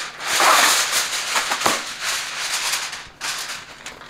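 Sheet of aluminum foil crinkling and rustling as it is pulled over a baking dish and pressed down around its rim. It is loudest in the first second, with a few sharp crackles, and grows quieter near the end.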